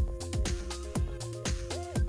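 Background electronic music with a steady kick-drum beat, about two beats a second, over held synth tones.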